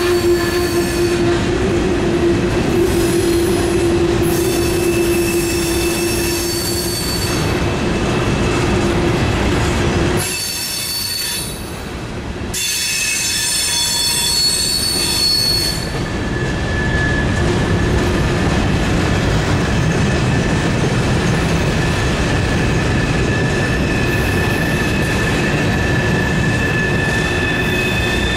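Steel wheels of a loaded grain train's freight cars squealing against the rail through a tight curve: several loud, high-pitched whines that come and go over the rumble of the rolling cars. The squeal cuts out briefly about ten seconds in, then returns.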